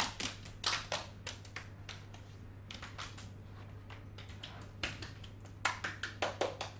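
Many quick, irregular clicks and taps in runs with short pauses, over a steady low hum.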